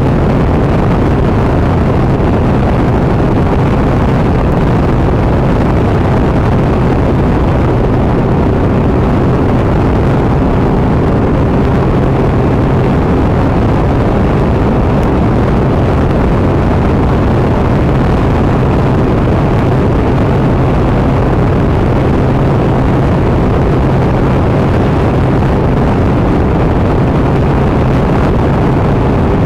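Motorcycle cruising at steady motorway speed: a constant engine hum under a rush of wind and tyre noise, with no change in revs.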